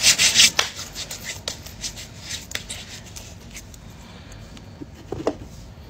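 Hands putting a gold bracelet on the wrist: a burst of rustling and light clicks in the first second, then scattered faint clicks.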